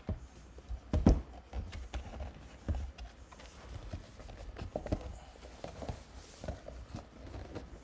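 Hands handling a cardboard product box and sliding it out of its sleeve: scattered knocks, taps and rubbing of cardboard, the loudest knock about a second in.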